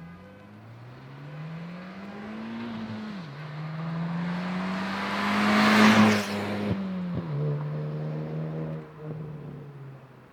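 Hyundai i20N's 1.6-litre turbocharged four-cylinder accelerating past under load. The revs climb, drop sharply on an upshift about three seconds in, climb again to the loudest point as it passes about six seconds in, then drop on another shift and fade away.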